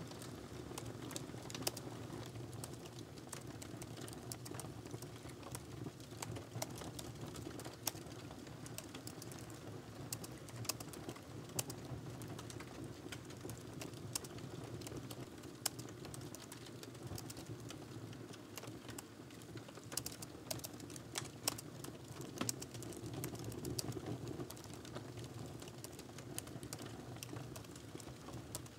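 Typing on a laptop keyboard: quick, irregular key clicks over a steady low background hum.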